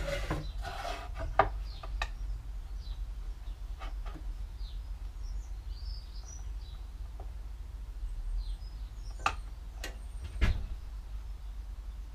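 Faint bird chirps, with a few light clicks and knocks as a square and pencil are handled on a wooden board, the loudest two near the end, over a low steady hum.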